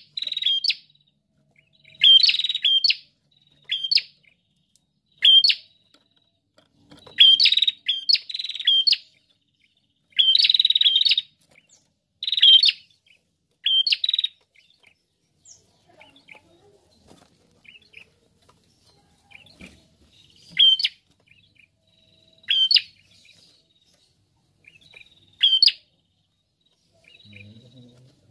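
A caged prenjak, a rufous-headed tailorbird, giving loud, sharp chirping calls in quick bursts every second or two. About halfway through the calls become sparser and fainter, with a few loud ones again later.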